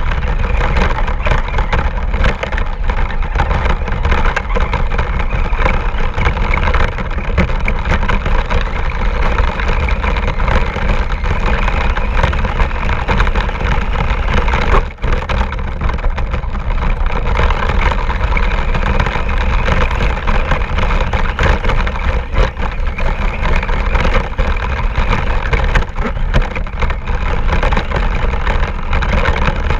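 Radio-controlled car driving, heard from a camera mounted on the car: its motor runs steadily under constant rattling and knocking from the chassis, with a brief drop about halfway through.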